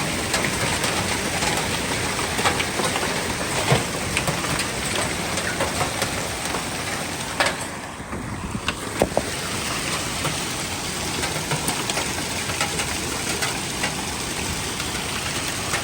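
Heavy rain and hail pouring down in a violent storm: a dense, steady rush with scattered sharp knocks of hailstones striking.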